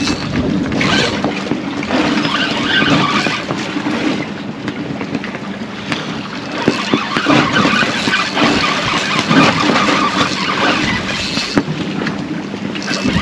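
Wind and water noise on a small fishing boat, over a steady low hum.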